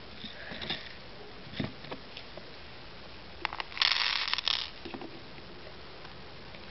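Small plastic fuse beads poured from a small plastic basket, clattering onto a clear plastic pegboard in a quick patter lasting under a second, about four seconds in. A few light clicks come before it.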